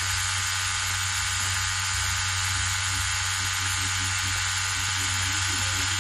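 Cartridge pen tattoo machine running with a steady electric buzz while the needle shades into skin.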